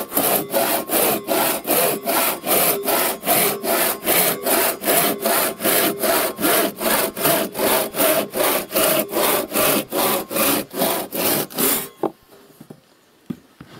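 Two-man crosscut saw cutting through a wooden board, rapid even back-and-forth strokes about three a second. The sawing stops abruptly about twelve seconds in, leaving only a few faint knocks.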